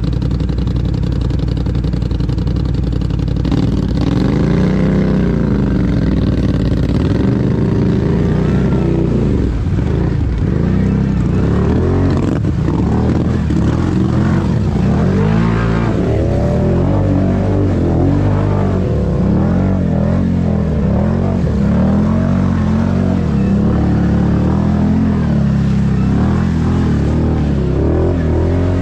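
ATV engine running steadily, then from about four seconds in revving up and down again and again as the throttle is opened and eased off.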